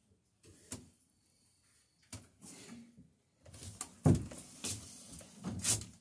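Irregular knocks, scrapes and rustles of a person moving about and handling wood, with the loudest knock about four seconds in.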